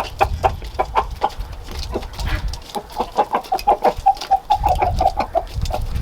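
A flock of chickens clucking in quick, short calls as they crowd in to eat freshly put-out feed, with scattered short ticks.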